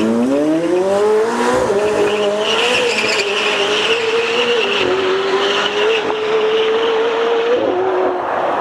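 McLaren 765LT's twin-turbo V8 launching hard from a drag-strip start line. The engine note climbs steeply as the wheels spin and the tyres squeal, then it holds through a few upshifts and dies away as the car runs down the strip. The wheelspin at launch is one the speaker puts down to the track and tyres not being up to temperature.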